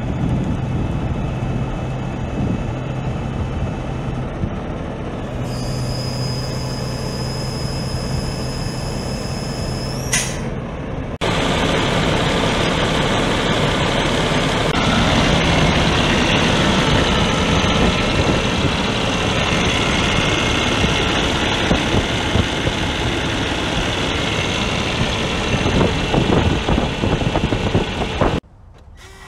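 Kenworth W900's Cummins ISX diesel engine idling, with a steady low hum and a thin high whine that ends in a quick rising squeal about ten seconds in. From about eleven seconds the engine is much louder, heard close up in the open engine bay, and it cuts off abruptly near the end.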